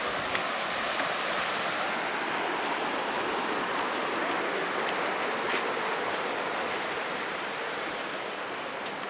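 Water rushing and splashing down a small rock waterfall, a steady even noise that fades slowly near the end.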